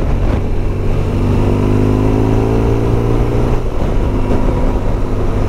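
Motorcycle engine under way with steady wind rush, its tone rising slowly for about three seconds as it accelerates, then fading back into the rumble.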